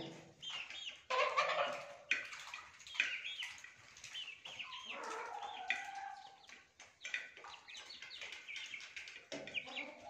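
Domestic hens clucking as they feed: many short calls scattered irregularly, some rising and falling in pitch.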